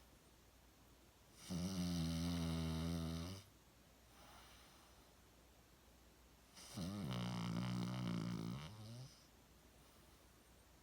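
Cavalier King Charles Spaniel snoring: two long, rattling snores about five seconds apart, with a soft breath between them.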